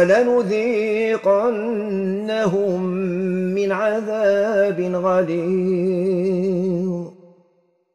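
A man reciting the Quran in the Maghrebi style, drawing out one long melodic phrase with a wavering, ornamented pitch for about seven seconds before stopping.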